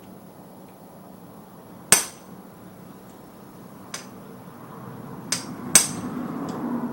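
Hammer striking the back of a manual impact screwdriver four times, sharp metallic blows with a brief ring, unevenly spaced, the first and last loudest. Each blow turns the bit to break loose a stuck screw.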